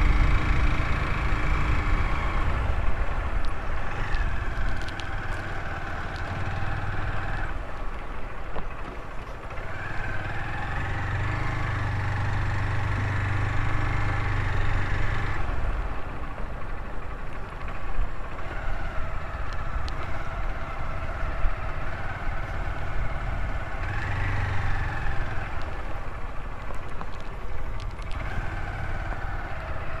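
Motorcycle engine running under way, its pitch rising and settling several times over a steady low rumble.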